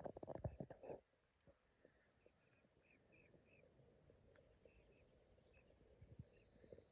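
A chorus of insects trilling steadily at a high pitch in an even pulse, with a few low bumps and rustles in the first second.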